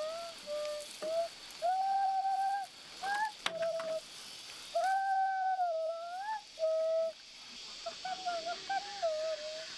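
An animal's repeated whining, whistle-like calls, each up to about a second long, some held steady and some wavering up and down, over a steady high hiss.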